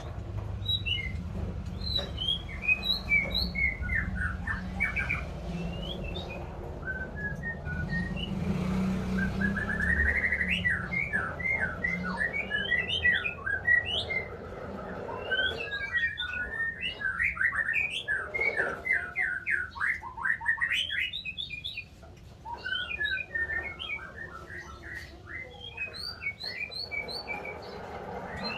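White-rumped shama singing: a varied stream of whistled notes and chirps broken by fast runs of repeated notes. A low rumble lies underneath for roughly the first ten seconds.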